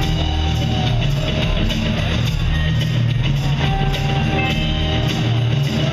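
Live rock band playing: electric guitar, bass guitar and drum kit, with the drums keeping a steady beat under sustained guitar notes.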